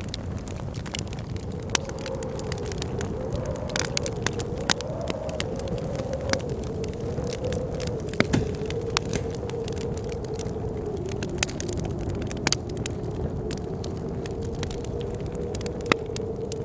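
Wood fire crackling with scattered sharp pops, over a steady blizzard wind that rumbles low and whistles in one wavering tone.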